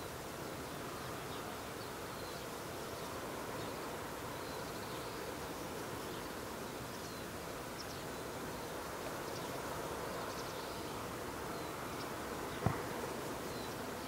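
Steady outdoor background noise with faint, scattered high chirps, and one sharp click near the end.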